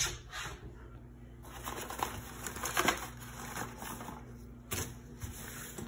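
Irregular rustling, clicks and knocks of household things and the phone being handled and moved about, over a faint steady hum.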